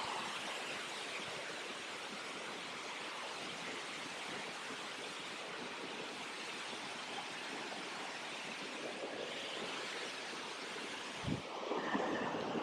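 A steady, even hiss of outdoor background noise, with one short low thump near the end.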